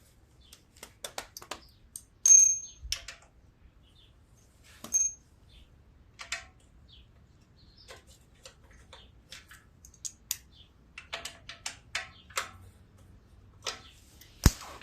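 Scattered clicks and clinks of small metal parts and hand tools being handled: a socket and extension and loose bolts on a small engine's metal shroud. Two sharper clinks, about two and five seconds in, ring briefly, and a sharp knock comes near the end.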